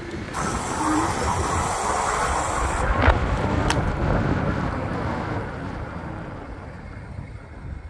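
The large geared hub motor of a Wired Cruiser e-bike running loud while riding, a rough, steady noise caused by loose magnets inside the motor. A sharp click comes about three seconds in, then a fainter one.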